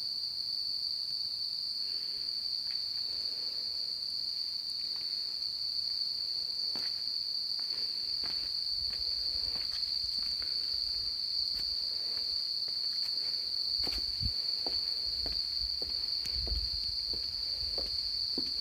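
Insects calling together in one continuous, steady high-pitched drone, which is the loudest sound. From about halfway in, footsteps and light knocks come through underneath it.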